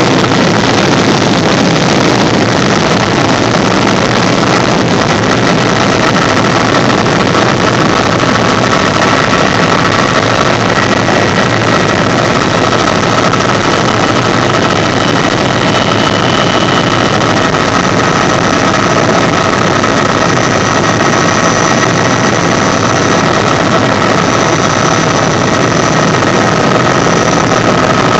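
Bell JetRanger III helicopter heard from inside the cabin on approach to a runway: its turbine and rotors make a steady, loud noise with a few steady whining tones. A higher whine comes in about two-thirds of the way through.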